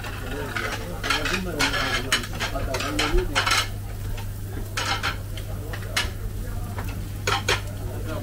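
Restaurant kitchen clatter: about a dozen short clinks and knocks of plates and metal utensils at irregular intervals, over a steady low hum and faint background chatter.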